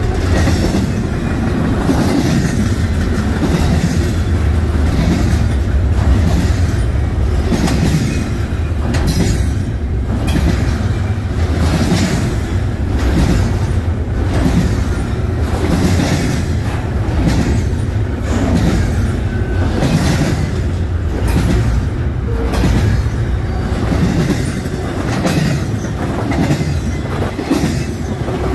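Doublestack container train's well cars rolling past: a steady rumble of steel wheels on rail, with a regular clicking as the wheels cross rail joints.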